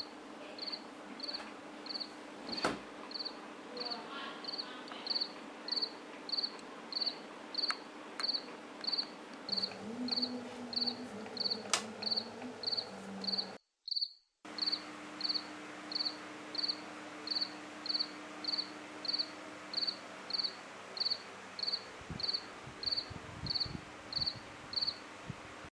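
Cricket chirping steadily at about two chirps a second over a faint low hum. The sound cuts out for under a second just past the middle, then the chirping resumes at the same pace.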